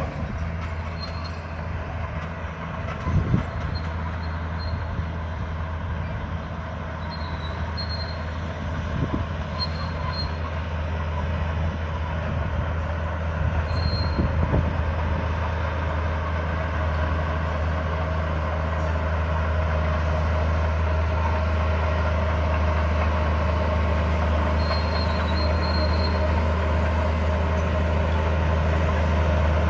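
Bulldozer's diesel engine running steadily, working a little harder from about halfway through. Short high squeaks come and go, and there are a couple of clunks about three seconds in.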